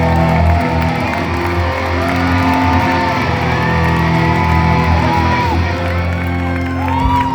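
Live rock band playing loud amplified music, with sustained electric guitar notes over a heavy low end.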